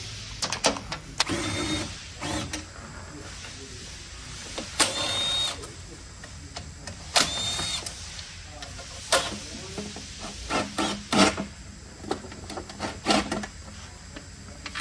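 A cordless electric ratchet spinning out transmission oil-pan bolts in repeated short whirring bursts, some with a high motor whine, with clicks and knocks in between.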